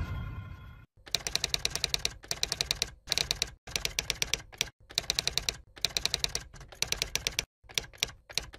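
Typewriter-style typing sound effect: quick runs of key clicks, roughly one run per second with short gaps between. In the first second the tail of a booming intro effect fades out.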